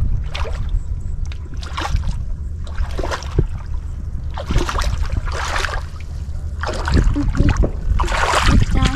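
Bare feet wading through shallow, muddy running water, each step a short splash about once a second, the splashes growing louder from about seven seconds in. A steady low rumble runs underneath.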